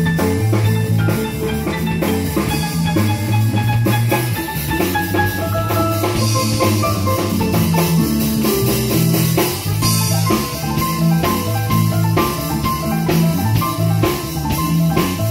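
Live blues jam: a drum kit keeping a steady beat under a Roland Juno-Gi keyboard playing, over a moving line of low bass notes.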